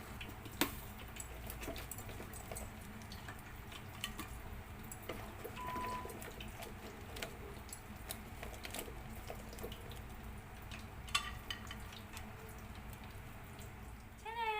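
Scattered clinks, knocks and scrapes of cooking utensils against a pan and plate as cooked crabs and shrimp are moved out of the pan, over a low steady background hiss. A short beep sounds once about six seconds in.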